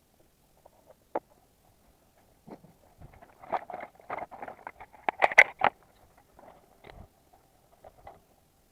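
Irregular clicks, clinks and short scrapes of hand tools and parts being handled during spark-plug work. The sounds come in a dense run of sharp clicks a few seconds in, with scattered single clicks before and after.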